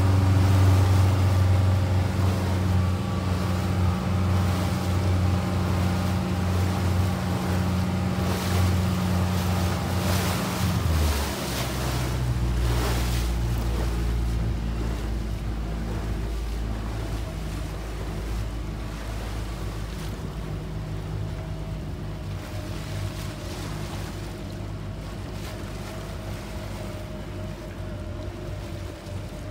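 Motorboat engine running steadily, then dropping in pitch about eleven seconds in as it is throttled back, and running on at the lower speed. Wind and choppy water are heard throughout.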